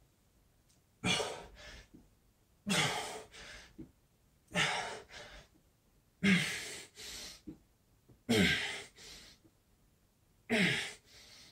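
A man breathing hard through a set of push-ups: six forceful, partly voiced exhales about two seconds apart, one per repetition, each followed by a softer breath.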